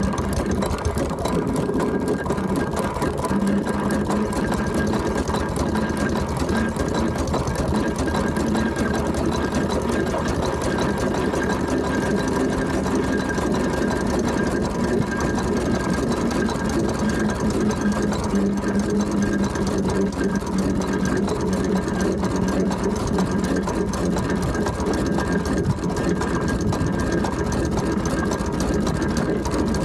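Steam traction engine on the move, heard from the footplate: a steady, rapid mechanical clatter of motion and gearing with constant tones running through it.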